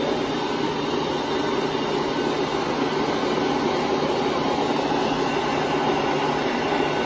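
Countertop blender running steadily on its smoothie setting, blending a milky strawberry-banana smoothie, with a constant low motor hum under the whir.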